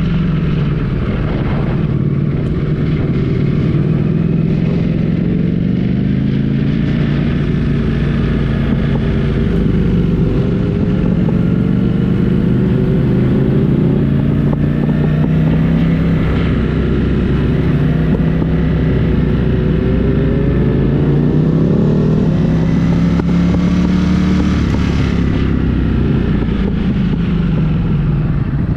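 Motorcycle engine running under way at a steady loudness, its pitch rising and falling several times with the throttle.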